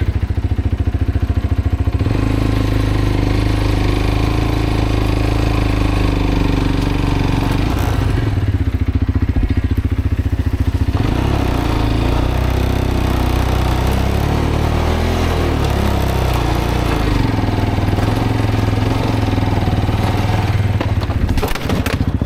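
Road motorcycle's engine running while being ridden, the throttle opening about two seconds in. The engine note then rises, falls and wavers several times under changing throttle.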